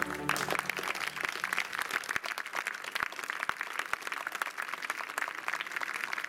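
Audience applause breaking out just as the orchestra's held final chord ends, then a steady dense clapping.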